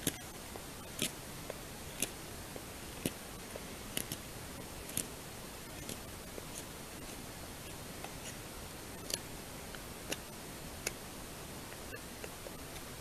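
Knife blade shaving a wooden stick in short cuts, each stroke a brief dry scrape or click. There is about one a second for the first five seconds, then a few more spaced out later, over a faint steady hiss.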